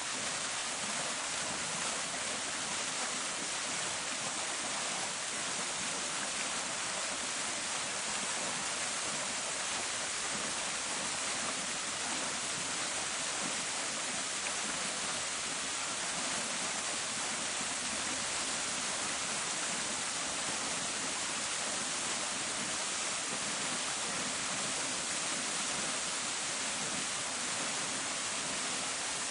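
Park fountain: water splashing steadily into its basin, an even rushing hiss with no breaks.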